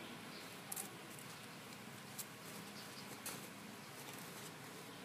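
Faint patter of a Chihuahua puppy scrabbling about in a wicker basket on a blanket, with three short soft ticks, against a steady faint hiss.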